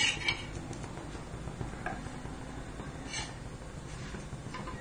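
A metal spatula clicking and scraping against a flat tawa griddle as a folded dosa is lifted off. There is a short cluster of clicks at the start, then a few faint scrapes, one about three seconds in.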